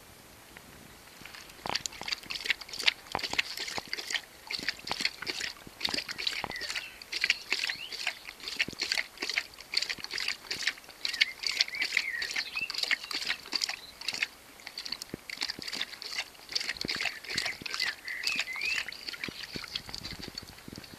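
Saint Bernard lapping water from a stainless steel bowl: a quick, even run of wet slaps and splashes, about three a second, starting about two seconds in and stopping near the end.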